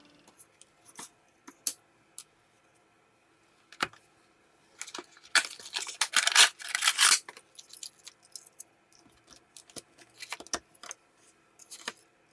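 Small hard parts being handled by hand: scattered clicks and clinks, with a denser, louder stretch of clattering and scraping in the middle.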